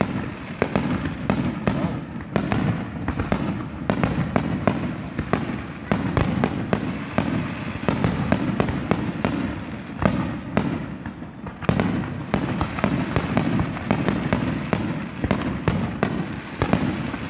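Aerial fireworks shells bursting in a rapid barrage: sharp bangs several times a second over a continuous low rumble of overlapping reports.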